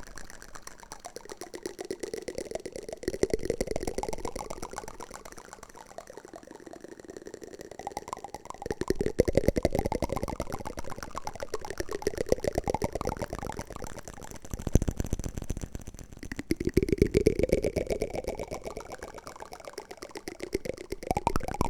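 Wooden spoon ASMR trigger: a dense, rapid clicking rattle that swells and fades every few seconds, each swell rising in pitch.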